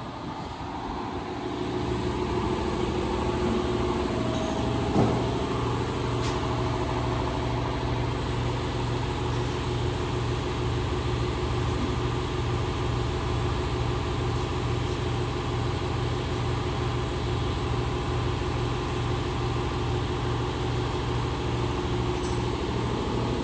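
A machine running steadily with a low hum and an even pulse, growing louder over the first two seconds and then holding level. A single knock comes about five seconds in.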